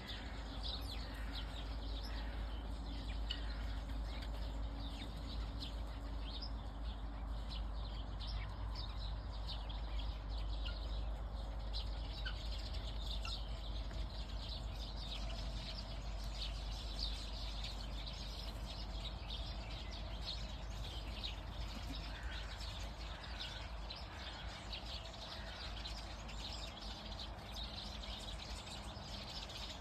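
Small birds chirping and calling continually, many short high chirps, over a steady low rumble.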